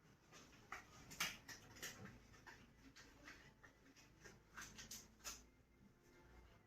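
Faint, scattered clicks and light rustles of small items being handled and set down: nursing equipment being laid out. The sharpest click comes about a second in.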